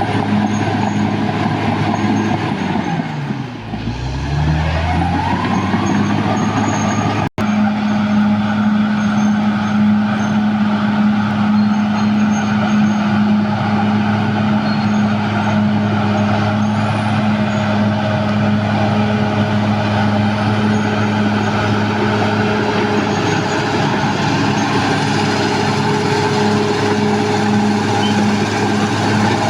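Caterpillar D6R XL bulldozer's diesel engine running hard with a steady low drone. A few seconds in, the engine pitch sags and then climbs back up along with a rising whine, before settling into steady running.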